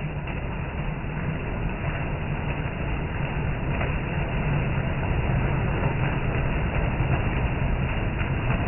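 Heavy rain pouring steadily onto an overhead corrugated awning and the yard around it: a dense, low rushing with faint scattered drip clicks, slowly growing louder.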